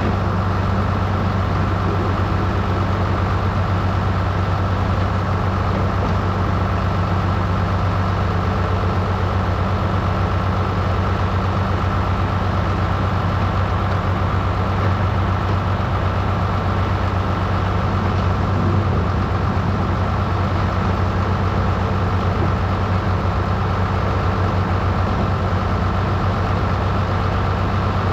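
International 686 tractor engine running at a steady speed, a constant low drone that does not change.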